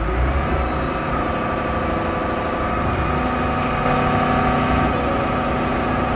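Heavy truck engine running steadily at idle: a deep low rumble under a steady, unchanging hum.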